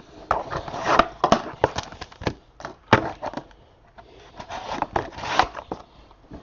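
Cardboard and plastic packaging of a trading-card box being handled and torn open: irregular crackles, snaps and rustling, with several sharp snaps.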